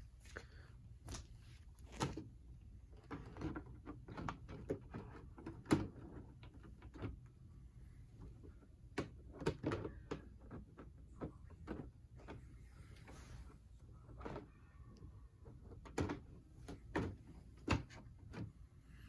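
Irregular clicks, taps and knocks of an RC crawler's body shell being fitted onto its chassis and the truck handled by hand, a few louder clacks among softer rustling.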